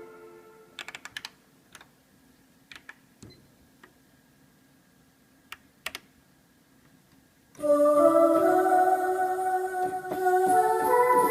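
Kurzweil K2000 synthesizer: an organ-like chord dies away, then a few quiet, sharp clicks over a few seconds. About two-thirds of the way through, a new sampled sound starts playing loudly, with held notes stepping upward in pitch.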